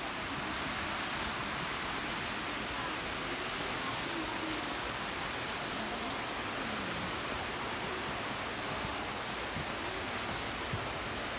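Steady rush of flowing water, an even hiss that holds without a break.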